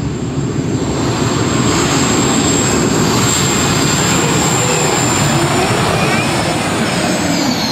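Competition pulling tractor's engines running at full power during a pull: a loud, dense engine noise with a steady high whine that slides down near the end.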